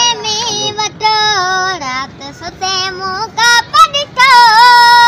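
A young girl singing a Sindhi folk song without accompaniment, in a high voice with sliding, ornamented notes sung in short phrases; about four seconds in she holds one long note.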